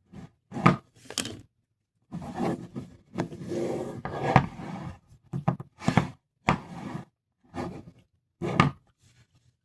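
Thick gooey slime being poked and squished with a poking stick: short sticky pokes, a longer run of squishing about two to five seconds in, then single pokes about a second apart.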